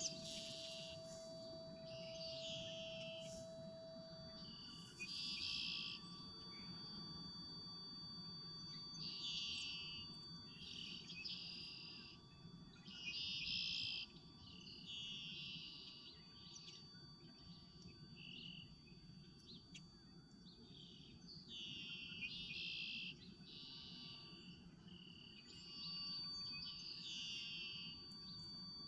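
Faint electronic improvisation: sustained high drone tones, with a lower tone dropping out about four seconds in. Short trilled chirps repeat every second or two, over a low steady rumble.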